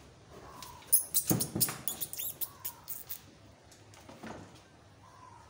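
Tethered breeder billy goat moving at its feed bowl and chain: a run of sharp, irregular clicks and rattles starting about a second in and lasting some two seconds, then a single knock near the end.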